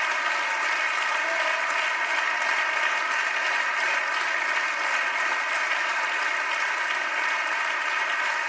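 Loud, steady applause from a large crowd of people clapping.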